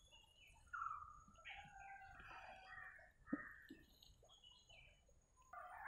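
Faint birds calling and chirping in the background, short falling and flickering notes, with a soft knock about three seconds in.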